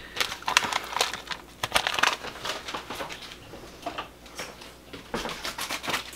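Paper packet of Lipton onion soup mix crinkling and rustling as it is handled and opened, in short, irregular crackles.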